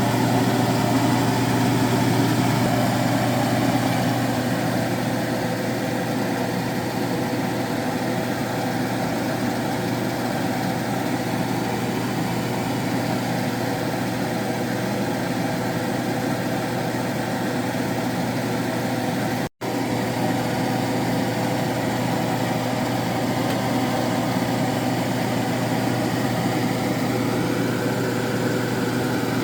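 Steady mechanical hum, like a motor or fan running, with a strong low drone. It cuts out for an instant about two-thirds of the way through.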